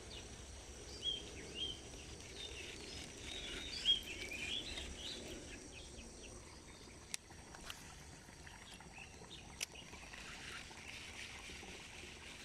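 Birds chirping and calling through the first few seconds over a steady high insect drone and the low rush of a rocky stream, with a couple of sharp clicks later on.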